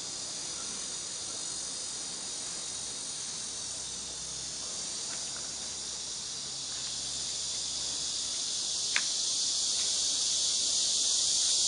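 Steady high-pitched hiss, like an insect chorus or recording noise, growing louder toward the end, with a single sharp click about nine seconds in.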